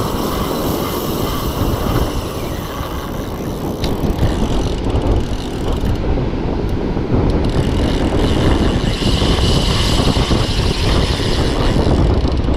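Strong wind buffeting the microphone, a loud rumbling roar, over surf washing onto the beach.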